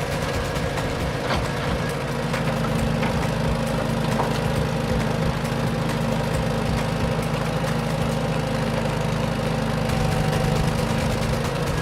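An engine running steadily at idle, an even low hum with a few faint ticks.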